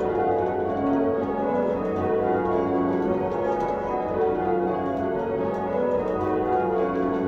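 Church bells being rung in changes by rope from the ringing chamber below, their strikes following one another in a steady run so that the tones overlap and ring on.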